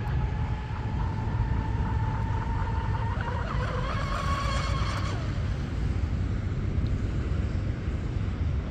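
Whine of a twin-motor RC mono boat's Turnigy XK3674 2200kV brushless motors running at speed. The pitch slowly rises, and the whine cuts off about five seconds in. A low rumble of wind on the microphone runs underneath.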